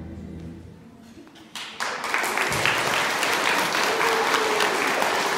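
The last of a piece of music dies away. About a second and a half in, a large audience of schoolchildren and teachers breaks into steady applause.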